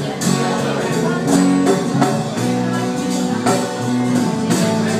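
Live acoustic band playing: strummed acoustic guitar over held keyboard notes, with hand percussion keeping a steady beat of about two hits a second.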